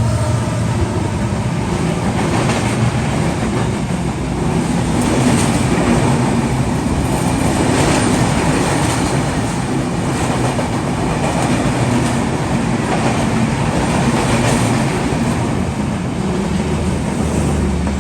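Drutojan Express intercity train running through a station at speed: a steady rush of rolling coaches with wheels clacking over the rail joints.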